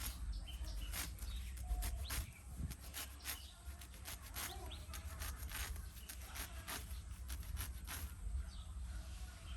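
Hand sickle cutting short Bermuda grass: a crisp rip-and-swish with each stroke, about one to two strokes a second at an uneven pace.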